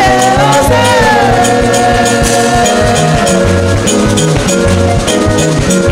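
Gospel band music with a steady drum kit beat, a stepping bass line and sustained held chords.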